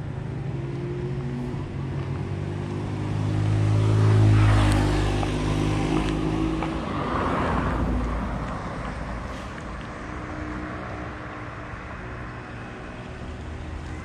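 A motor vehicle driving past on the road beside the canal: engine hum and tyre noise build to their loudest about four seconds in, swell again more lightly around seven to eight seconds, then fade.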